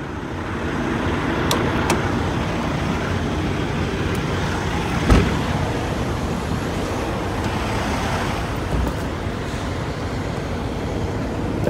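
Steady low rumble of idling trucks and road traffic, with a single sharp knock about five seconds in.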